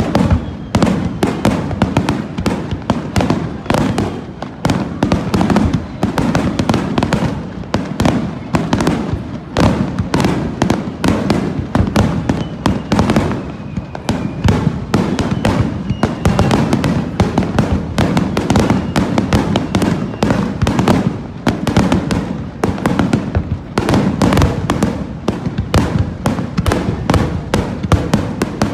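Fireworks display going off in a rapid, continuous barrage: many bangs and crackles a second, with no break.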